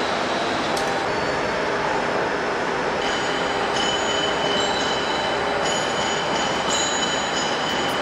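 Cable tray roll forming machine running, steel strip passing through its forming rollers: a steady mechanical clatter and rumble. From about three seconds in, a thin high squeal comes and goes over it.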